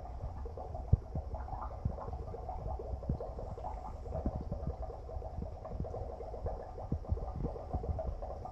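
Dry ice bubbling in a cup of water as the carbon dioxide sublimates: a steady low bubbling rumble with many small irregular pops, and one sharper pop about a second in.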